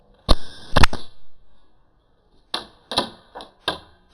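Airsoft guns firing in sharp cracks: two loud shots within the first second, then four lighter, quicker shots in the second half.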